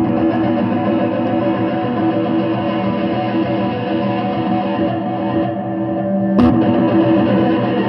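Solid-body electric guitar played through an amplifier: sustained notes ringing on, with a fresh picked attack about six and a half seconds in.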